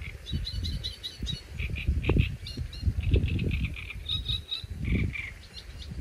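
Small birds chirping in quick runs of short, high notes over gusting wind that rumbles low on the microphone, rising and falling every second or so.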